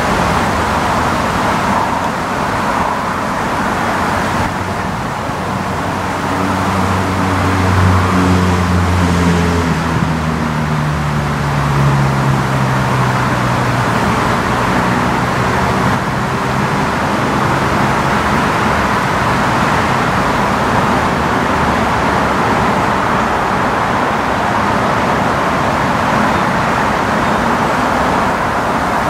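Steady background road-traffic noise. From about six to about sixteen seconds in, a passing engine's low hum slides slowly down in pitch.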